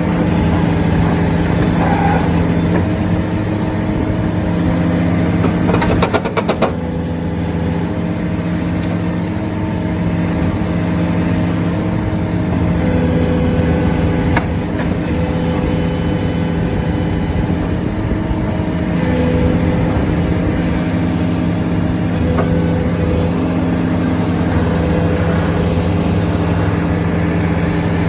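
Hitachi Zaxis 490 LCH excavator running hard at sheet pile driving: a steady heavy machine drone whose tones shift a little now and then, with a quick rattle of knocks about six seconds in.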